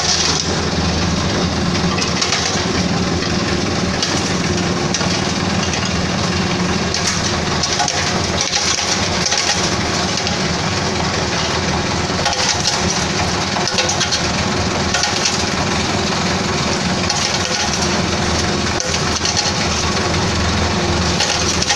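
Nutmeg shelling machine running with a steady drive hum while nutmeg seeds rattle and crack inside it as their shells are broken, giving a dense crackling over the hum.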